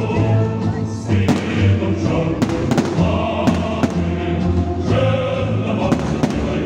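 Choral music with sung, held notes, over which fireworks shells go off in several sharp bangs.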